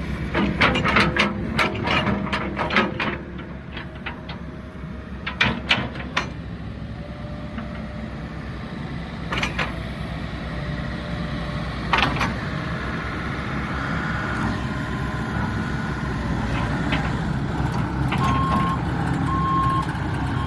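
New Holland B95C loader backhoe's FPT 3.4-litre four-cylinder diesel engine running, with clusters of sharp knocks in the first few seconds and again about five to six seconds in. Near the end its reversing alarm starts beeping, about once a second.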